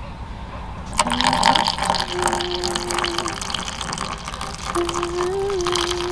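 Water poured from a kettle spout into a stainless-steel cup of nurungji (dry toasted rice), splashing and filling from about a second in.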